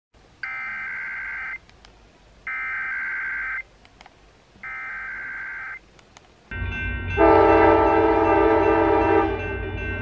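Three data bursts of an Emergency Alert System SAME header, each about a second long with a short gap between, heard from a radio as the opening of a Required Weekly Test. About six and a half seconds in, a train's low rumble begins, and a multi-note train horn sounds for about two seconds and is the loudest thing.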